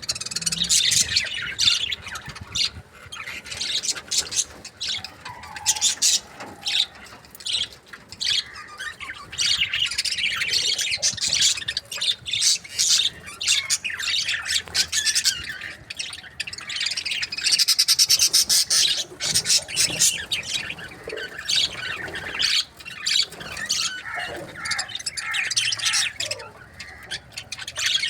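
Budgerigars chattering: continual overlapping chirps, warbles and harsh squawks from several birds, with a louder burst of squawking about two-thirds of the way through.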